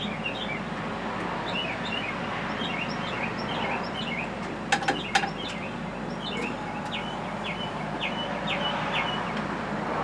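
Small songbirds chirping and calling outdoors, many short notes with a run of evenly repeated notes in the second half. About five seconds in come three sharp clicks close together, over a steady background hiss.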